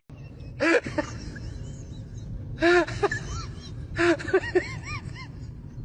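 A pet animal crying in short pitched calls that rise and fall: three bouts, the last a quick run of several calls.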